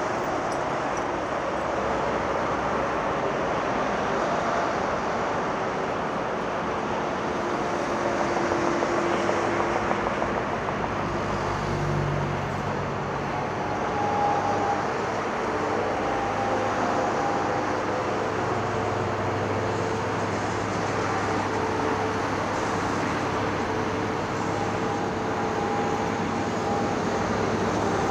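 Diesel construction machinery running steadily, with engine tones that rise and fall as the machines work over a constant drone.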